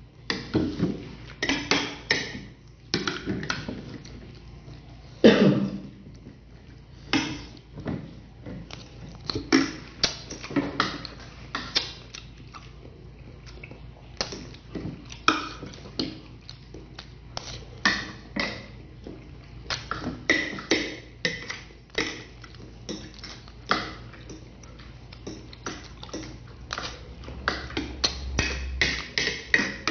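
Close-up eating sounds: a metal spoon and fork clinking and scraping on a ceramic plate, mixed with chewing and lip-smacking, in irregular short clicks throughout.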